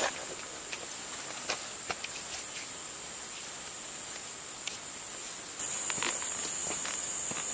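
Steady high-pitched insect drone, growing louder after about five and a half seconds, with scattered light ticks and footsteps on dry ground.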